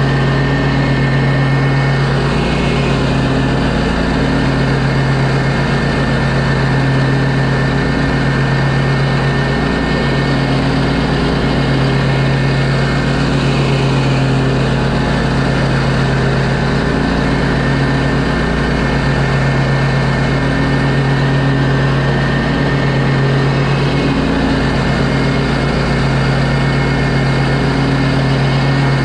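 Exmark stand-on commercial mower's engine running steadily while mowing grass, heard close up with a strong, even low hum.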